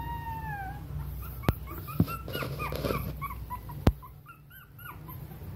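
Small white long-haired dog whining: one long, wavering whine at the start, then a run of short, high-pitched whimpers over the next few seconds. Three sharp clicks stand out, about one and a half, two and four seconds in.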